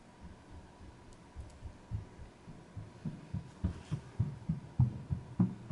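Handling noise from fingers pressing a small nylon check valve and its plunger back together close to the microphone: soft, low thuds at about three a second from around two seconds in, with a couple of faint clicks before them.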